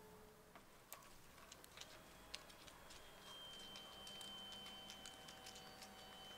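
Faint steady whine of a Lanmodo automatic car tent's electric motor winding the canopy back in, starting about three seconds in, with scattered light ticks and clicks before and during it.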